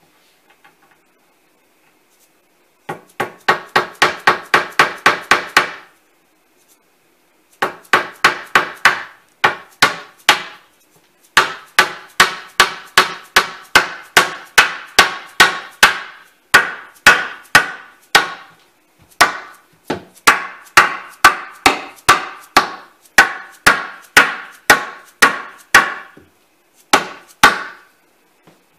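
Hammer blows on wood in quick, even runs of about three or four strikes a second, each with a short ringing tail, in four bursts with brief pauses between them.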